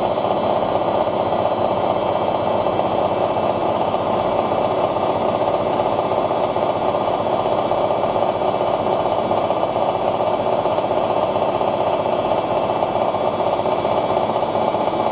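Hoover DYN9144D3X washing machine's drum spinning at high speed in its final spin, set to 1000 rpm: a loud, steady whir that holds an even pitch throughout.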